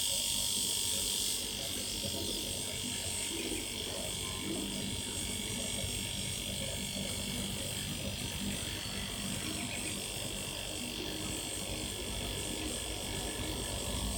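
Salvaged refrigerator compressor running steadily with a buzzing hum, pumping air to inflate a tyre.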